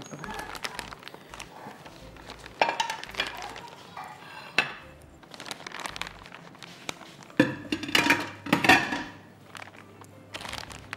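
Crinkling of a plastic marshmallow bag and light clinks and knocks on a glass dish as marshmallows are taken out and put in by hand. The loudest handling comes about seven to nine seconds in.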